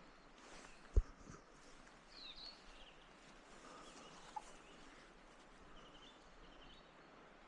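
Birds calling over faint outdoor ambience, with a few short chirps and a quick run of repeated notes. A single sharp knock about a second in is the loudest sound, followed by a fainter one.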